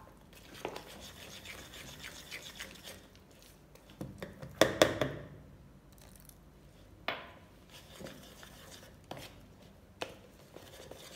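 Metal spoon stirring and scraping thick besan batter in a plastic bowl, with small clicks of the spoon against the bowl. A little over four seconds in comes a louder clatter, and water is poured in from a small glass to thin the batter.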